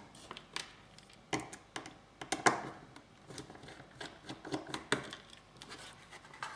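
Scattered small clicks and taps of a screwdriver and fingers on the case of a Browan MerryIoT Helium hotspot as its Phillips screws are taken out, then the unit is picked up and handled.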